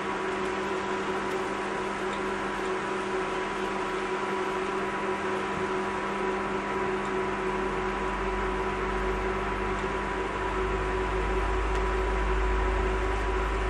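Steady hum with a constant whine and hiss from a pan of mushrooms and tomatoes cooking on an electric hob, with a low rumble growing in from about halfway through.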